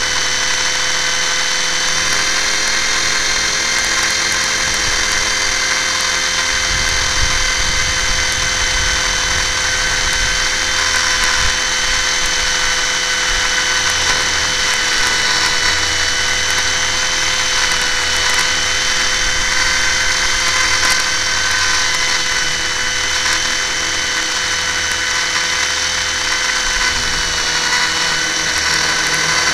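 Radio-controlled helicopter in flight, heard from a camera mounted on it: its motor and gear train whine steadily at an unchanging pitch, with an uneven low rumble of rotor wash and wind on the microphone.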